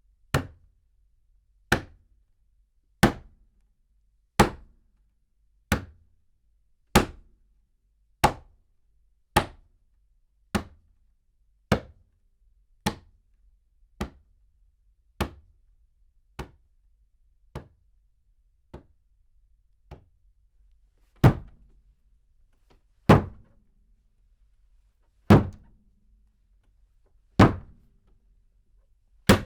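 Repeated slams on a table heard from medium distance, each a sharp thunk with a short decay. Evenly spaced hits a little over a second apart grow gradually softer, then about two-thirds of the way through come about five louder slams roughly two seconds apart.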